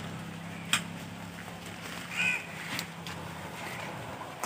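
Sharp clicks and knocks of a wire-mesh chicken-coop door being worked open by hand, with one short bird call about two seconds in.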